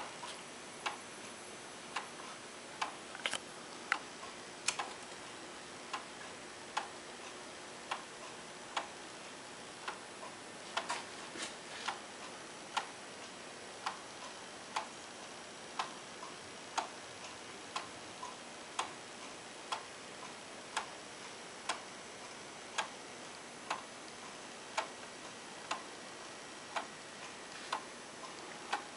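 Wooden-geared eight-day clock ticking evenly, about one tick a second.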